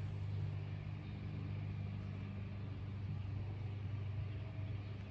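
A steady low mechanical hum of an engine or motor, holding one pitch throughout.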